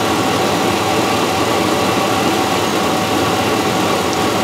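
Chevrolet 4.8-litre V8 of a 2004 Chevrolet 1500 pickup idling steadily at about 590 rpm, warmed up. It is running on a freshly fitted set of replacement fuel injectors that have cured its rich running, with fuel trims close to zero.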